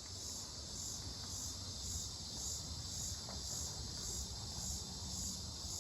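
High-pitched insect song, a continuous buzzing trill that swells in even pulses about twice a second, over a low rumble.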